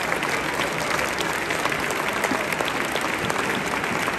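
Concert audience applauding: many hands clapping steadily, with no break or swell.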